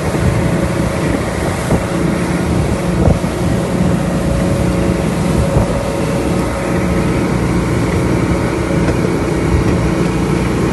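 Motorboat engine running steadily at speed while towing a water-skier, with the wake's water rushing and wind buffeting the microphone.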